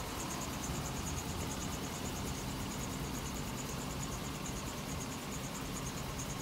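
2004 GMC Yukon Denali's V8 idling with a steady low hum, and a rapid, high-pitched pulsing chirp running over it.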